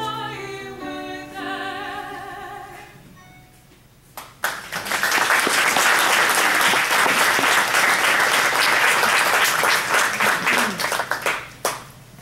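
A woman's solo singing voice finishes a phrase, and after a short pause an audience breaks into loud applause that lasts about seven seconds and dies away near the end.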